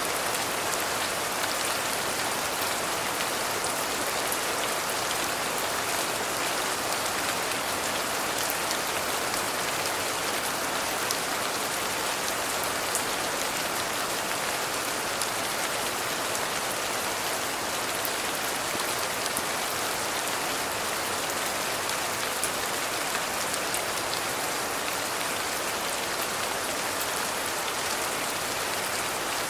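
Steady rain falling: an even, dense hiss with scattered sharper drop ticks.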